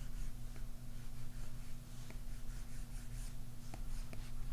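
Apple Pencil tip stroking and lightly tapping on an iPad Pro's glass screen, with a few faint ticks, over a steady low hum.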